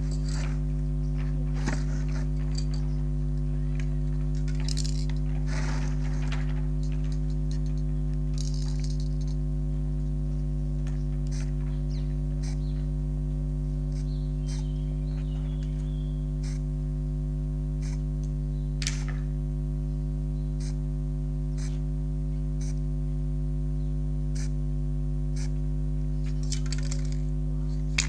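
A steady low hum made of several pitched tones runs throughout. Over it come a few short, faint hisses of aerosol spray paint and light clicks from the cans being handled.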